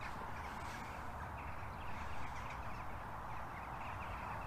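Faint crows cawing repeatedly over a steady rushing background.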